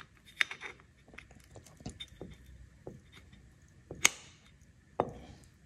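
Scattered small metallic clicks and taps from parts of a Hilti reciprocating saw being handled and fitted together during reassembly. Two sharper knocks come about four and five seconds in, the first with a brief ring.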